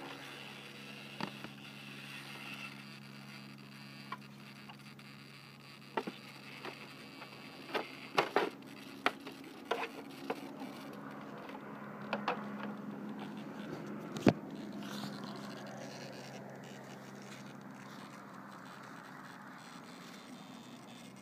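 Scattered clicks and knocks of a Thunder Tiger Raptor E700 RC helicopter's canopy and frame being handled, bunched in the middle with one sharper knock in the second half, over a faint steady low hum.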